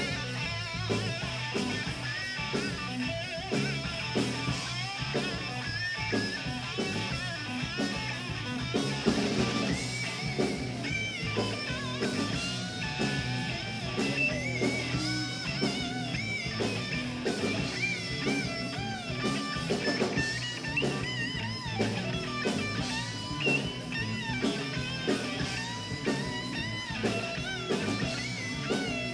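A rock band playing live: electric guitar over a drum kit keeping a steady beat.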